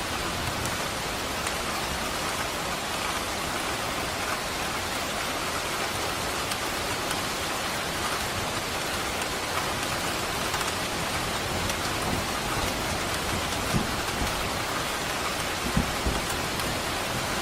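Steady rain falling on hard surfaces, an even dense patter. A few brief low thumps come near the end.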